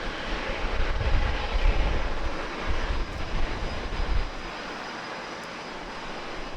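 Jet airliner engines rumbling on the airfield, easing off to a quieter, steadier hiss about four seconds in.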